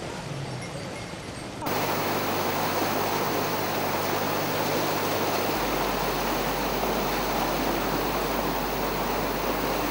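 Fast-moving floodwater rushing: a loud, steady wash of churning water that starts abruptly about two seconds in.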